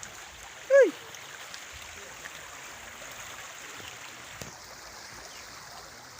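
Floodwater rushing and flowing steadily after heavy rain, with one short falling shout from a person about a second in.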